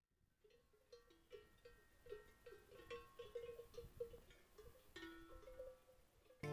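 Faint, irregular clanking of cowbells on grazing cows, the bells striking unevenly at a few different pitches.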